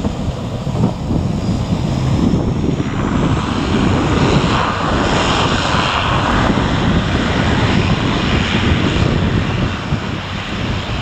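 Aircraft engines of a passing airliner: a loud steady rush. A faint high whine falls in pitch over the first two seconds, and the sound swells from about three seconds in.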